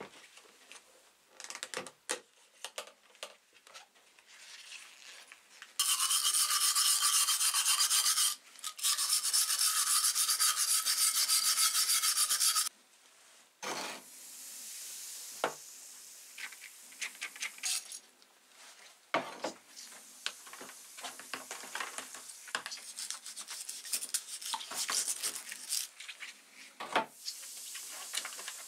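Hand wire brush scrubbing rusty metal blowtorch parts after a 48-hour soak, fast and loud for about six seconds with one short pause. Quieter intermittent scraping and sharp clicks follow as the parts are handled in the liquid and on a plastic tray.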